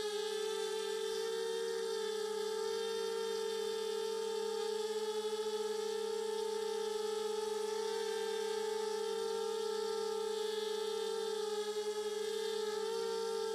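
The four rcx 1804-2400 brushless motors and propellers of a Hobbyking FPV250 quadcopter whining steadily in flight, heard close up from the onboard camera, the pitch wavering slightly as the throttle is adjusted.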